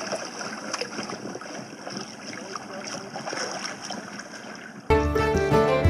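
Water rushing and trickling along a small sailboat's hull as it moves through the water. Near the end, music with a bowed-string melody starts abruptly.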